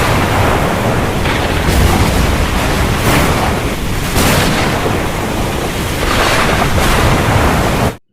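Loud storm sound of wind and rain rushing, rising and falling in gusts. It cuts off suddenly near the end.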